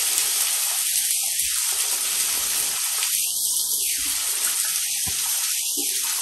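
Hot cooking oil sizzling steadily as chicken fries, a constant even hiss.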